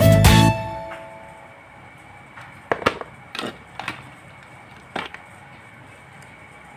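Background music fading out within the first second, then four light clicks and knocks of the stand fan's plastic neck housing and switch wiring being handled.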